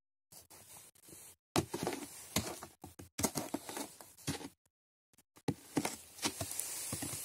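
Footsteps of high-heeled boots in snow: irregular crunching steps that begin about a second and a half in, with a denser stretch of crunching near the end.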